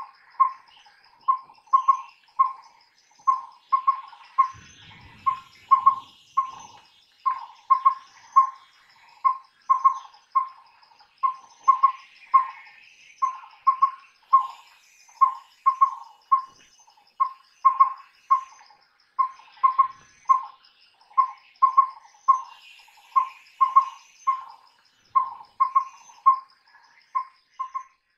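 Collared owlet (collared pygmy owl) calling: mellow, whistled single-pitched hoots repeated over and over in quick runs of a few notes with short gaps between them. A faint, steady insect-like trill runs high above.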